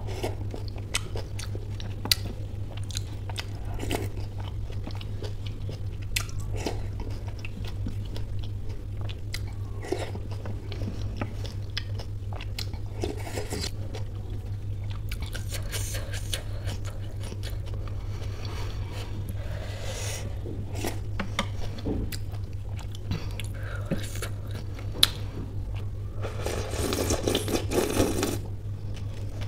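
Close-up mouth sounds of eating ghugni (spiced pea curry): wet chewing and small lip and tongue clicks, over a steady low hum. Near the end comes a louder, longer slurp of curry liquid sucked from the edge of the metal tray.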